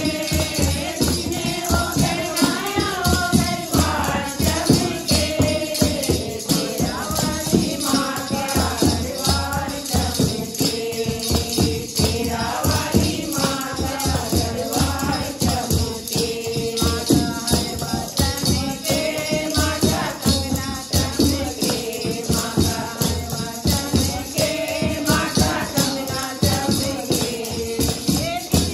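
A group of women singing a Hindu devotional kirtan bhajan together, over a fast, steady rattle of hand-held wooden kartal clappers with jingles and the beat of a dholak drum.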